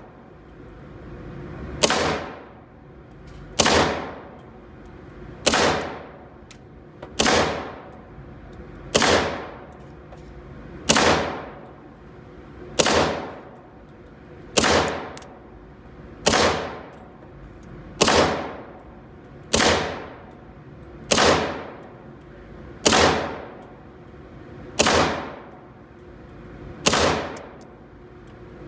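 A semi-automatic .17 HMR rifle firing slow, evenly paced single shots, fifteen in all, about one every two seconds. Each crack echoes off the walls of an indoor range before dying away.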